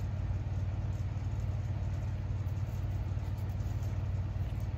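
A steady low rumbling hum, even throughout, with no other clear sound standing out.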